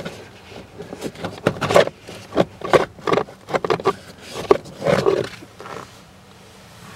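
Dirty pleated cabin air filter of a Volkswagen Passat B6 being pulled out of its plastic housing by hand: irregular scraping and rustling as the filter's pleats and frame rub against the housing. The noises stop about six seconds in.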